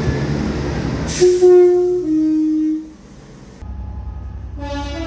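Train two-tone horn sounding over the rumble of the train: a high note about a second in, dropping to a lower note, about a second and a half in all. After a cut, another train horn starts near the end.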